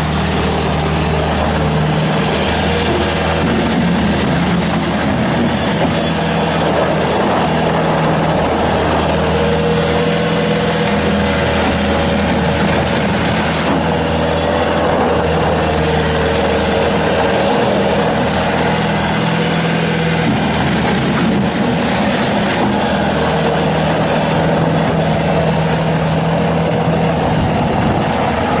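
Bobcat S250 skid steer's Kubota turbo diesel engine running steadily and loudly as the machine is operated, its pitch wavering slightly.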